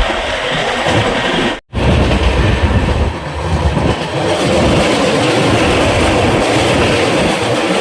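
Indian Railways express train running along the track: a steady rumble and rattle of the wheels and coaches, with a brief dropout to silence about a second and a half in.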